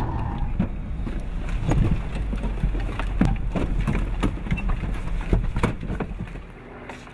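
Quick, irregular thuds and clicks of a tactical team's running footsteps and rattling gear, over a steady low rumble.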